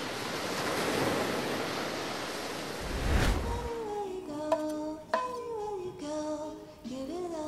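Sea surf washing, swelling about three seconds in. Then a gliding melody of background music takes over, with a couple of sharp clicks.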